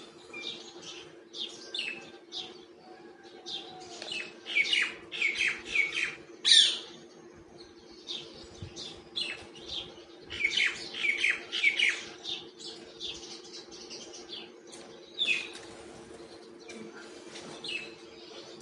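Myna chirping and calling in quick runs of short, high notes, with the densest runs twice, a few seconds apart, over a steady low hum.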